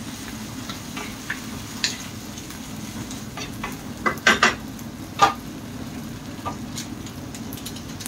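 Mixed vegetables sizzling in a pan while being stirred with a utensil, with a few sharp clacks of the utensil against the pan about four to five seconds in.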